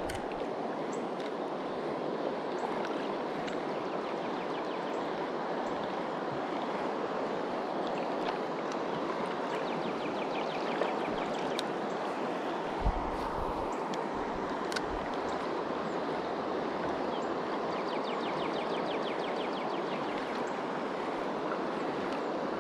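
River water rushing steadily over a shallow rocky riffle, a constant, even wash. About two-thirds of the way through comes a single brief low thump.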